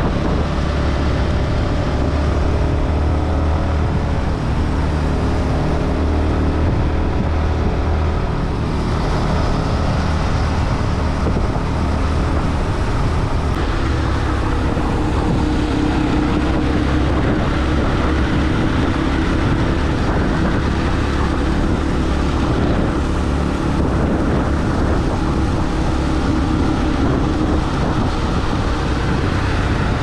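Yamaha motorcycle engine running steadily while riding, with wind and road noise on the microphone; the engine note shifts about nine seconds in.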